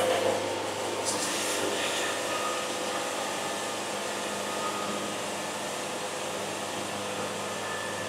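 Wood-Mizer LT70 band sawmill running steadily as its saw head makes a pass along a log cant, an even machine rush with a low hum under it.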